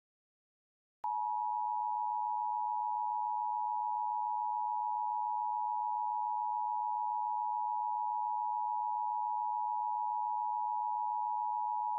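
Emergency Alert System attention tone: a steady, unbroken electronic tone near 1 kHz that starts about a second in, announcing that an alert message is about to be read.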